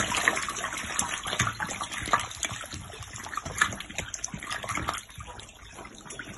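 Crowded catfish thrashing at the water's surface: a continuous churning slosh full of small splashes, loudest at first and dying down about five seconds in.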